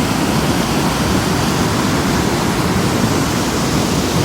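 Running water making a steady, loud rush with no breaks.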